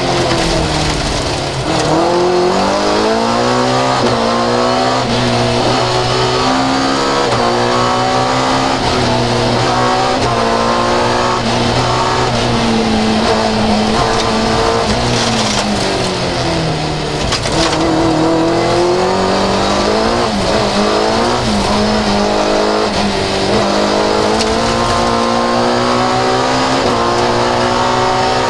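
Fiat 131 rally car's engine heard from inside the cabin at stage pace, revving up and dropping back again and again as gears are changed, with one long falling run of revs about halfway through.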